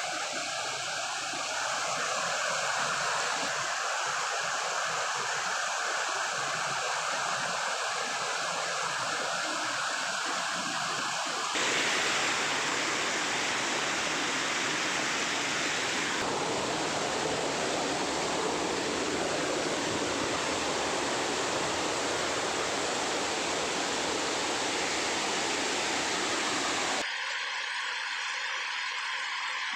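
Steady rushing of falling water from a hill-stream waterfall. The sound changes abruptly about twelve seconds in, becoming fuller and deeper, and again near the end, where it turns thinner and hissier.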